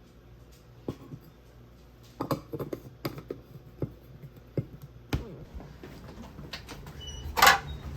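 Irregular light clicks and knocks, like small objects being handled and set down, with a short, loud rustling burst near the end.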